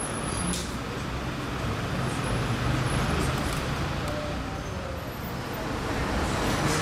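Bugatti Chiron's quad-turbocharged W16 engine idling: a steady low rumble.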